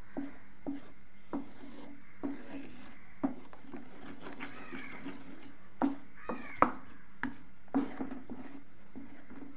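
Wooden spatula knocking and scraping against a pot at an uneven, unhurried pace, stirring thick pineapple pulp. Near the middle there are two drawn-out animal calls that rise and fall in pitch.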